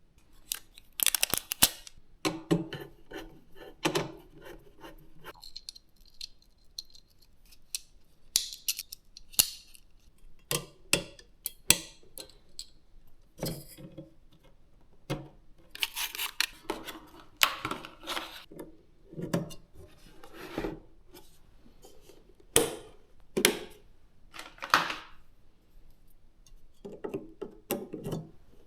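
PC components and case parts being handled and fitted by hand: irregular plastic and metal clicks, knocks and short rustling scrapes, a second or two apart.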